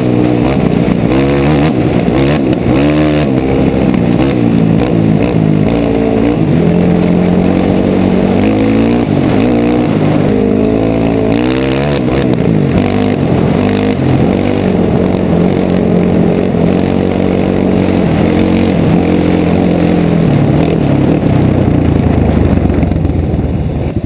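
Dirt bike engine running close up, revving up and down over and over as the rider rides, the pitch rising and falling repeatedly; it eases off near the end.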